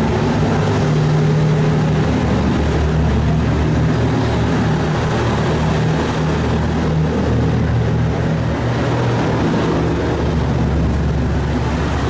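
Diesel limited-express railcar running at speed, heard from inside the carriage: a steady low engine drone over continuous rolling noise.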